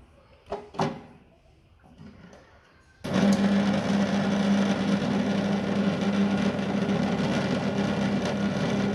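Electric table-top wet grinder switched on about three seconds in, its motor running with a steady hum and whir, then cut off abruptly near the end; a few light knocks come before it starts.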